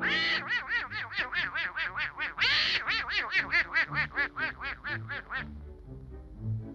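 A cartoon duck voice cackling in a rapid run of squawking calls, about four a second, with one louder rasping squawk midway. It stops about five and a half seconds in, leaving soft orchestral cartoon score underneath.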